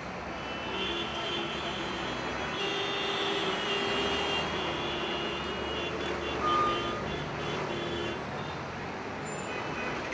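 Roadside traffic noise with truck and car engines running, and a short, high single beep about six and a half seconds in.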